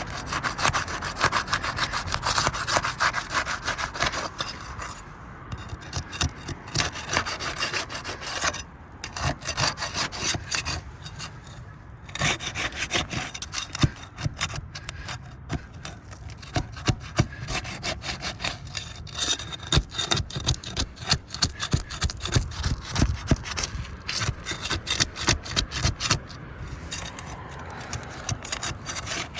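Steel flat bar worked under asphalt roof shingles, scraping and crackling as it breaks their sealant strips loose. It comes in spells of rapid strokes with short pauses.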